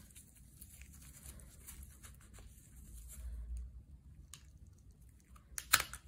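Gloved hands handling a plastic engine ECM connector and working a small pick at its lock: faint rustling and light plastic ticks, with a low bump about halfway. A couple of sharp plastic clicks come near the end as the lock lets go.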